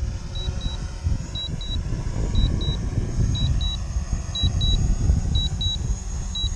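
Wind buffeting the microphone with a heavy, uneven rumble. Over it, a short high double beep repeats about once a second: the drone's low-battery warning as it comes down on a critically low battery.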